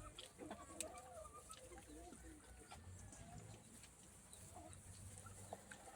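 Faint bird calls, short wavering notes mostly in the first two seconds, with a few light clicks.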